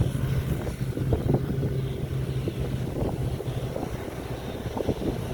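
Rice combine harvester running, a steady engine hum that fades about two seconds in, leaving a low rumble.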